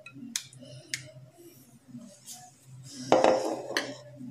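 A few light clicks and clinks of a china plate being handled, then about a second of scratchy handling noise about three seconds in.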